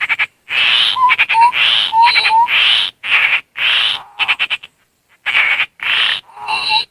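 Fluffy-backed tit-babbler (tepus landak) lure calls: a run of harsh, churring bursts about half a second each, broken by quick rattling notes and several short rising whistled notes. The sound cuts off suddenly at the very end.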